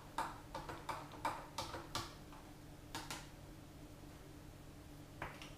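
A string of sharp, short clicks and taps, quick and irregular for about two seconds, then one at about three seconds and another near the end, over a faint steady hum.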